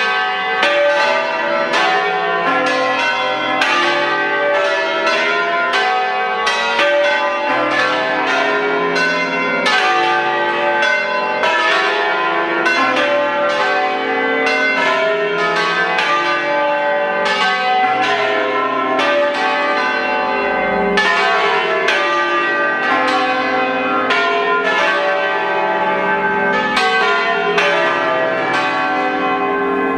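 Church bells ringing a distesa (full swing): the eight-bell concert in C cast by Pasquale Mazzola in 1879, striking thick and fast with each stroke ringing on into the next.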